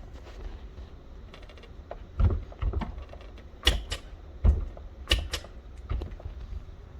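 A run of sharp knocks and clicks, about half a dozen between two and six seconds in, over a low steady rumble.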